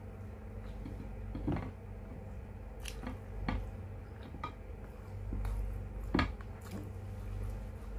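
Someone eating stewed fish: wet chewing and mouth smacks with scattered sharp clicks, the loudest a little after six seconds in, over a steady low hum.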